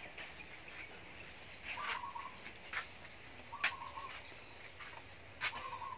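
Wire-mesh sieve knocked against the rim of an aluminium basin while sifting palm sugar: four sharp knocks, each with a short metallic ring.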